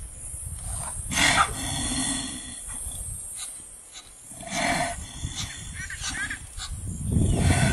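Animal calls from a lioness clamped onto a blue wildebeest's throat, in several loud outbursts. A few short high chirps come about six seconds in.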